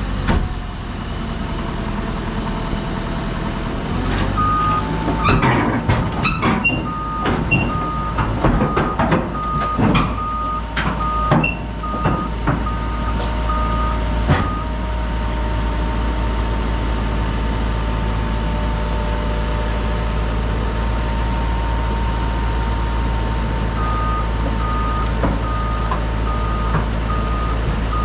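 Hyundai HX140AL excavator's diesel engine running steadily while its travel alarm beeps at about three beeps every two seconds in two spells, the first a few seconds in and the second near the end. Sharp clanking knocks come during the first spell of beeping.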